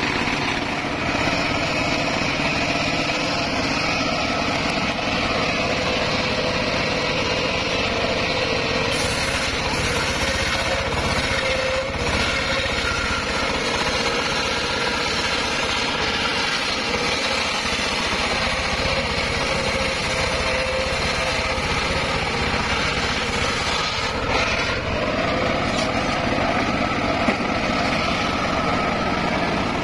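Homemade circular sawmill running steadily as its large blade rips a mahogany log lengthwise, the machine's whine and hum continuous. Its tone shifts about twelve seconds in and again near twenty-five seconds.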